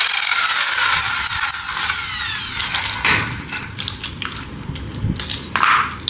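Hand-held electric drill running and winding down, its whine falling in pitch and fading out over the first couple of seconds. Then scattered clicks and clinks of small metal parts, pliers and a wheel assembly being handled.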